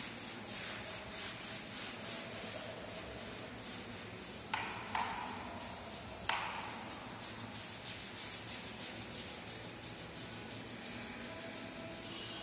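Long-handled brush scrubbing back and forth over rough concrete stair treads in steady scratchy strokes. Three sharp knocks come in the middle.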